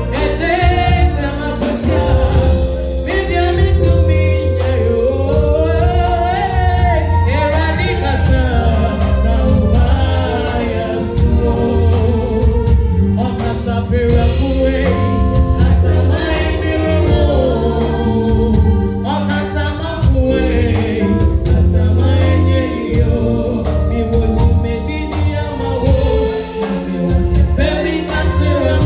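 Woman singing a gospel song through a PA microphone, her voice wavering and gliding between notes, with backing singers and an amplified accompaniment carrying a heavy, steady bass line.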